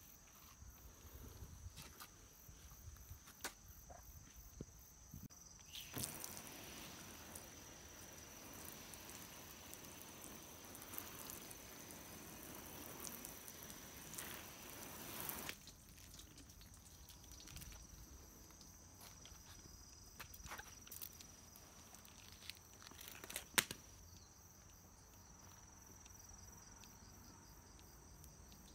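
Water hissing from a garden-hose spray nozzle onto a car's wet hood for about ten seconds, starting about six seconds in and cutting off suddenly. Scattered light clicks of handling, one sharper click near the end, and a faint steady high-pitched whine throughout.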